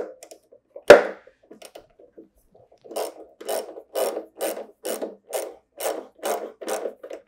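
Hose clamp being tightened onto an exhaust hose with a hand driver. A sharp click comes about a second in, then a steady run of rasping, ratchet-like clicks, about two a second.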